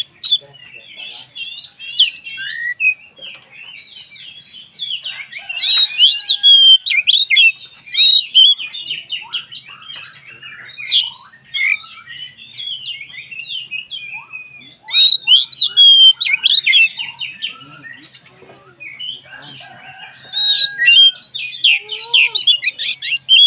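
Oriental magpie-robin (kacer) singing loudly: a rapid, varied stream of whistled and chattering notes in bursts of a few seconds, with quieter twittering between them.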